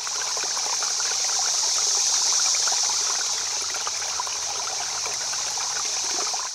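Steady hiss with fine crackling through it, like fizzing or trickling water: an added sound effect that fades in at the start and fades out at the end.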